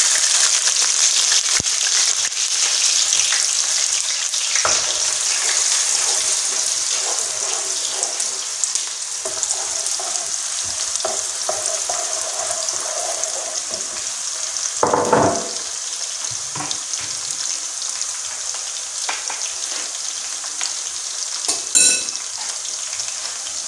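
Sliced onions sizzling in hot vegetable oil in an aluminium pot: a loud, even hiss that slowly softens as they fry. They are stirred with a wooden spatula, with a few short knocks now and then.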